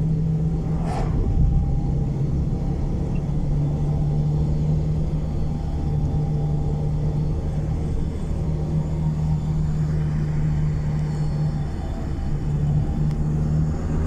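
Car engine and road noise heard from inside the cabin while driving, a steady low drone.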